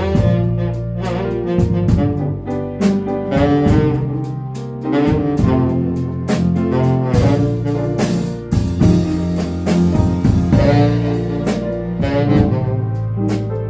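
A band playing a slow, jazzy instrumental passage, with held melody notes over bass and a steady drum beat.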